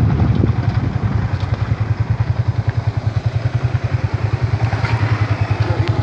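A motorcycle engine running slowly with an even, pulsing low beat, settling to an idle from about a second in as the bike comes to a halt.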